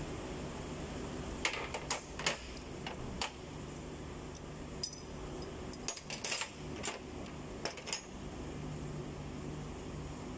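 Scattered light metallic clinks and taps of hand tools and parts being handled on a bare engine block, mostly in the first eight seconds, over a steady low mechanical hum.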